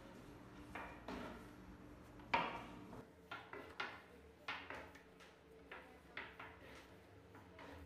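Long, thin wooden rolling pin (oklava) knocking and rolling on a floured table as a sheet of baklava dough is rolled out by hand. Irregular soft taps, the loudest about two and a half seconds in, then a quicker run of light taps.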